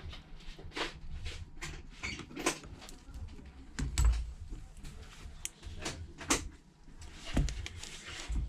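Small tools clicking and tapping on an iPhone's frame during a screen repair, as the earpiece bracket screws are set and driven, with two duller thumps about four and seven and a half seconds in.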